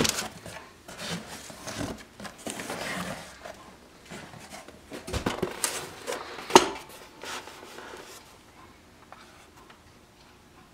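Small parts and packaging of an AR-15 lower parts kit being handled: rustling and rubbing with scattered clicks and knocks, one sharper knock about two thirds of the way in, then quieter handling.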